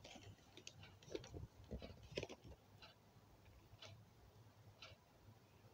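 Near silence: room tone with a few faint, irregularly spaced clicks, clustered in the first half.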